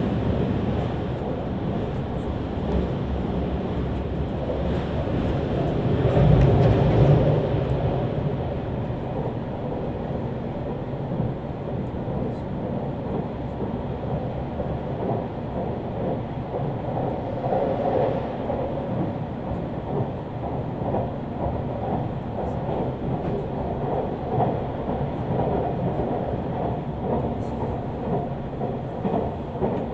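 Shiokaze limited express train running at speed, heard from inside the carriage: a steady rumble of wheels on rail, swelling louder about six seconds in.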